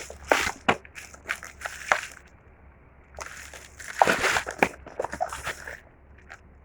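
Packaging being handled: irregular crinkling and rustling in short bursts, with a brief lull about a third of the way in.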